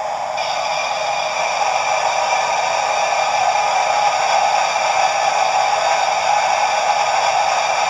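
Model steam locomotive's sound-decoder injector effect: a steady hiss of steam and water. It comes in about half a second in over the engine's idling background hiss and then runs on evenly.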